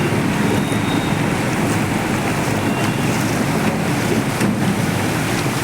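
Steady rush of road traffic and splashing water on a flooded street, with wind buffeting the microphone.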